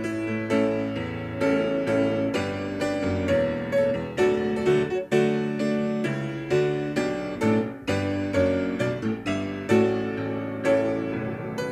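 Background piano music: a slow melody of single struck notes over low held tones, each note fading after it is struck.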